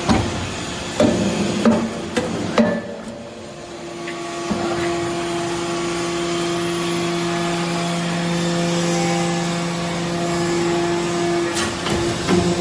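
Metal shaving baler at work: a few sharp metallic clanks, then a steady machine hum for several seconds, then more clanks near the end.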